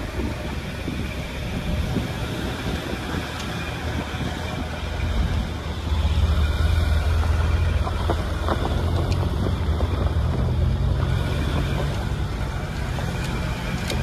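Land Rover Discovery 3 driving on a loose gravel and marble-rubble track, heard from inside the cabin: a steady engine and tyre rumble with occasional stone clicks, growing louder about six seconds in.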